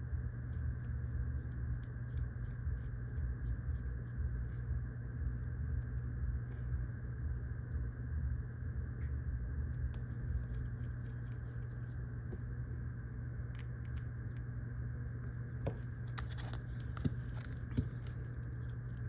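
Faint small ticks and clicks of a precision Phillips screwdriver and tiny screws being worked into a phone's internal plate, with two sharper clicks near the end, over a steady low hum.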